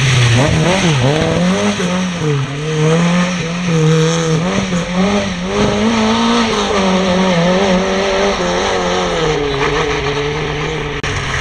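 Lada 2101 rally car's four-cylinder petrol engine, revved hard and repeatedly backed off. The pitch rises and dips over and over as the car accelerates and brakes through the slalom gates.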